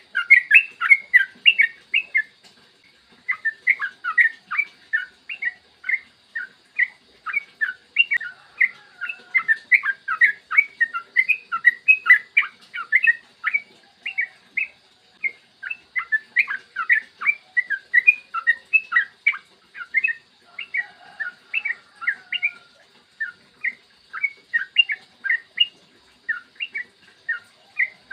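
Yellow-vented bulbul (trucukan) singing a long, fast, chattering song, the ropel style. Quick runs of short notes come in phrases with brief pauses between them.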